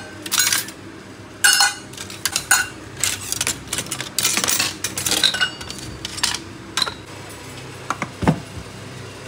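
Stainless steel kitchen utensils and measuring cups clinking and rattling against each other as a hand rummages through a crowded plastic utensil basket: a quick string of sharp metallic clinks with short ringing. A single dull knock comes near the end.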